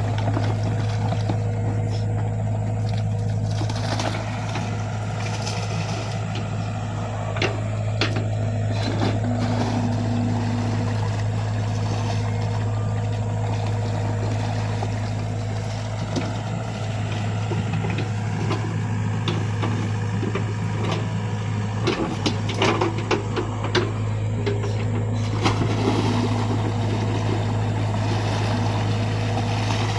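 XCMG mini excavator's diesel engine running steadily while it digs a ditch, with scattered knocks and scrapes, most of them in a cluster in the second half.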